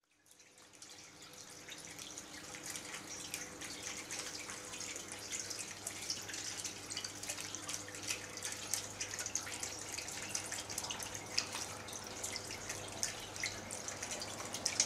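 Water trickling and dripping down an Azul Macaubas quartzite column fountain into its stone basin of quartz pebbles: a dense, irregular patter of small splashes that fades in over the first second, with a faint steady hum beneath.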